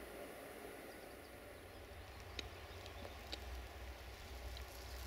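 Faint outdoor ambience: a steady low rumble, with a few short high ticks or chirps in the second half.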